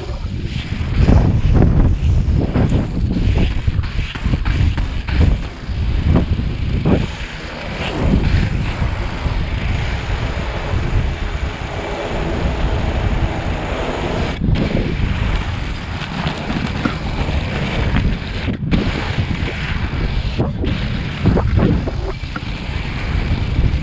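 Wind buffeting the microphone of a GoPro held on a pole while skating, over the steady rumble of inline skate wheels (Revolver 80mm 86a urethane wheels) rolling on rough asphalt.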